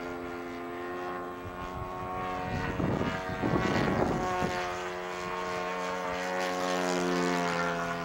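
Saito FA-80 four-stroke glow engine of an RC model plane running steadily in flight, its pitch shifting a little now and then. A rush of noise lasting about two seconds comes in from about two and a half seconds in and is the loudest part.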